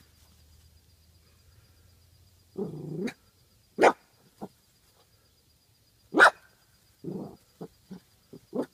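Long-haired dachshund barking at a frog: from about two and a half seconds in, a lower woof, then two loud sharp barks, followed near the end by a quick run of shorter, quieter barks.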